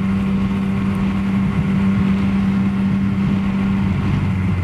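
Yamaha Tracer motorcycle engine running at a steady pitch while riding, with wind rush over it. Near the end the engine note drops lower.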